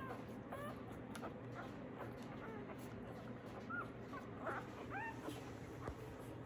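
Day-old Labradoodle puppies squeaking and whimpering while they nurse: many short, high squeaks, each rising or falling in pitch, coming every half second or so.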